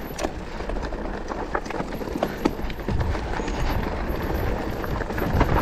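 Mountain bike riding over a dry, loose trail: tyres crunching on stones and the bike clattering with many small irregular knocks, over a steady low rumble.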